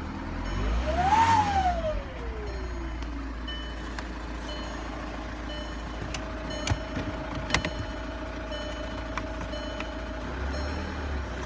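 2009 Volkswagen Jetta SportWagen TDI's 2.0-litre four-cylinder diesel revved once about a second in, with a loud whine that climbs and falls with the revs. It then idles with a steady high whine, and the revs start to rise again near the end. The whine comes from a failed turbocharger whose compressor fins had blown apart, behind the underboost code P0299 and limp mode.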